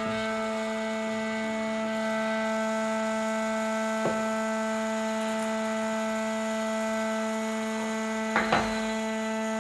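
Ambient drone music: several sustained tones are held steadily together. A short soft attack comes about four seconds in and two more near the end.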